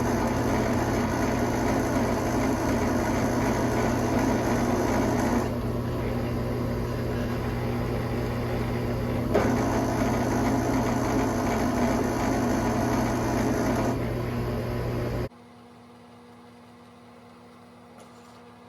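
Drill press motor running steadily while holes are drilled in a pipe. The hum thins for a few seconds around the middle and cuts off suddenly about fifteen seconds in.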